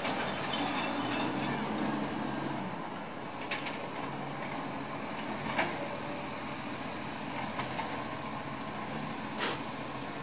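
Iveco side-loader garbage truck's diesel engine running as it rolls up to the kerb, louder for the first couple of seconds and then settling lower, with a thin steady high whine. A few short sharp clicks and hisses, one about two-thirds of the way in and one near the end, as the truck stops and its automated arm starts lifting a bin.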